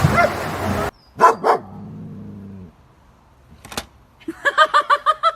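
A dog barking in a rapid run of short barks, about five a second, starting about four seconds in; two short sharp sounds come shortly after one second in.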